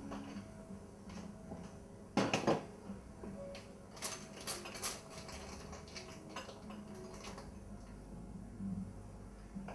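Light handling clatter of small hard objects: a louder knock a little over two seconds in, then a few sharp clicks and clinks around the middle, over a faint room background.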